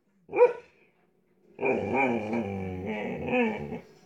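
Dog 'talking': one short yowl, then after a pause a long, wavering growly howl of about two seconds that rises again near the end.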